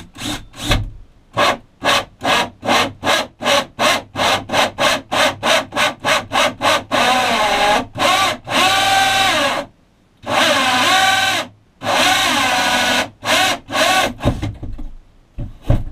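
Cordless drill driving a 2-inch hole saw through a camper's wall panel. For the first half the drill runs in short bursts, about three a second, as the saw starts its cut; then it cuts in longer runs of a second or two, its whine sagging under load, with a few more short bursts near the end.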